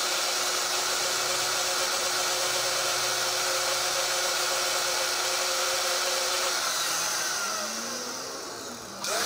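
Angle grinder and drill running together: the grinder's disc grinds down a gear spinning in the drill's chuck, which serves as a makeshift lathe. About six and a half seconds in, the sound winds down in falling pitch and drops in level, then a tool starts up again just before the end.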